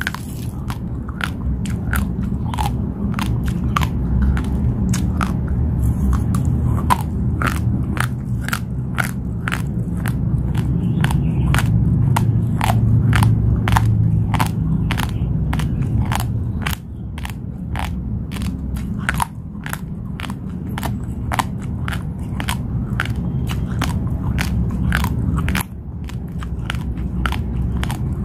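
A person chewing raw long-grain basmati rice: a steady run of sharp crunches, about two a second, as the dry grains crack between the teeth.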